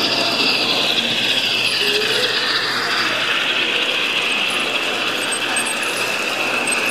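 HO-scale Märklin model train running past: a K.W.St.E. class C steam locomotive and its coaches, with a steady mechanical clatter of wheels and gearing on the track.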